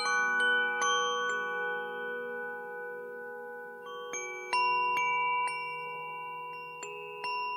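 Tuned Nada wind chime ringing, its metal tones struck at irregular moments and sustaining and overlapping one another. Several strikes in the first second or so, few between about two and four seconds in, then a fresh run of strikes.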